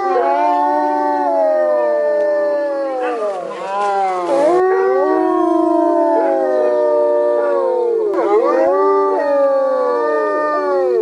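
A pack of wolves howling in chorus: several long, overlapping howls that slide up and down in pitch, breaking off and rising again about three and a half and about eight seconds in.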